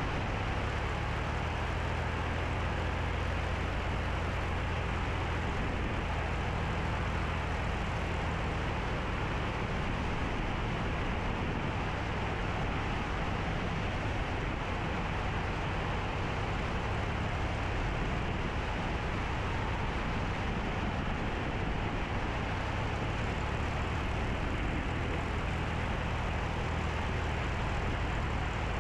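Cessna 172B's piston engine and propeller running steadily in flight on final approach, with a low steady drone and a hiss of airflow over it.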